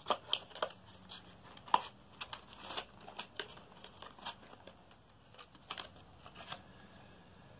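Handling noise of cardboard packaging: scattered light taps, clicks and rustling as a small cardboard box is moved about and set into a larger box, with one sharper knock about two seconds in.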